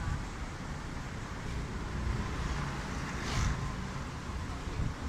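Street traffic noise with wind buffeting the phone's microphone, a steady low rumble; a brief hiss rises about three seconds in.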